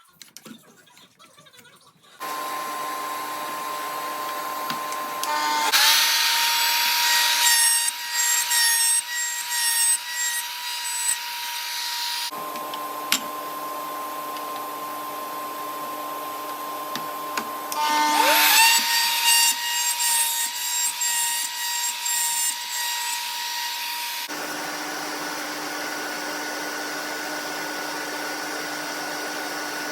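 Router motor on a PantoRouter spinning with a steady whine. Twice it cuts into wood for several seconds at a time, getting louder and rougher while its pitch dips a little under the load: mortises being cut in small parts.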